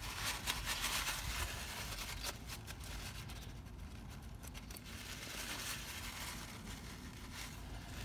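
Cloth shop rag rubbing and wiping over the valve spring seats of a small-block Chevy cylinder head, a soft rustling scrub. It is busiest for the first two seconds, then softer, with scattered short scrapes.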